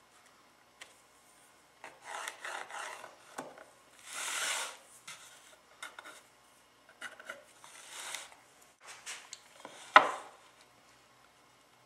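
Wood being rubbed or scraped by hand in several short, irregular strokes, then one sharp knock about ten seconds in.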